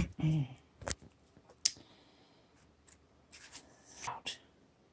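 Cardboard packaging and paper leaflets being handled: two sharp taps about a second and a second and a half in, then paper rustling near the end. A brief hum of voice comes at the start.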